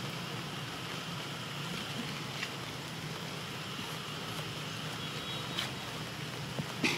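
Steady outdoor background noise, a low hum with a faint high hiss, broken by a few short clicks, the loudest near the end.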